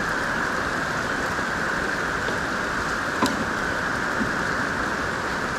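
Heavy rain falling, a steady hiss, with one brief click about three seconds in.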